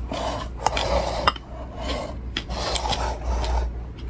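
Rasping, rubbing handling noise of a plastic food tub on a wooden table, in two stretches, with a few light clicks.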